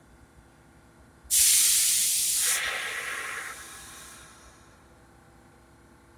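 Stopped New York City subway train letting out a sudden loud hiss of compressed air about a second in, fading away over the next three seconds.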